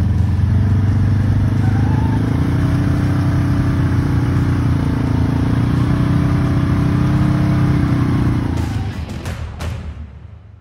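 Polaris General side-by-side's engine running at steady revs under load as the machine climbs out of a mud hole, fading out near the end.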